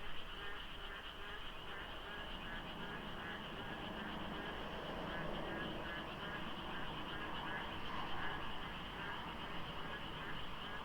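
A dense chorus of frogs calling over one another in fast, steady pulsing rattles, so many overlapping voices that the number of frogs is hard to judge.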